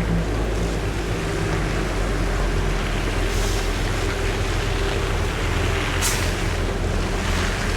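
Heavy vehicle engine running steadily in street traffic, with a short hiss about six seconds in.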